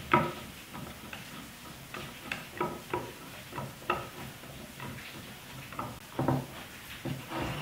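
Homemade wooden bar clamp being handled and adjusted: its wooden jaw and screw block knock and click against the notched wooden bar in an irregular string of sharp clacks.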